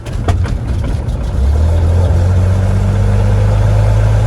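Cessna 182's propeller engine running loudly and steadily, heard from inside the cockpit. There are a few sharp clicks at first, and the engine note builds and settles into a steady low drone after about a second and a half.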